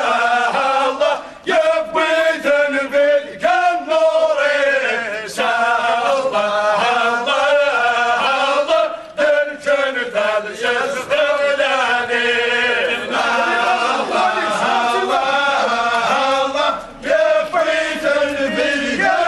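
Many men's voices chanting together in a funeral procession chant. The chant runs in repeated phrases broken by short pauses.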